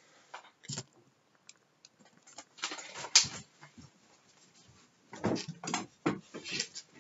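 A series of knocks and thuds as a person moves about close to a laptop microphone, the loudest about three seconds in. Then footsteps and the handle and latch of a panelled bedroom door being worked, near the end.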